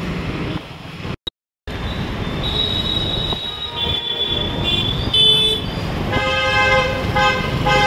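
Busy city road traffic with motorcycles and cars, and vehicle horns honking: a high horn from about two and a half seconds, then a lower, fuller horn sounded in several long blasts from about six seconds. The sound cuts out briefly about a second in.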